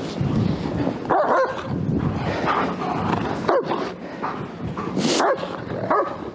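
German Shepherd barking and whining several times.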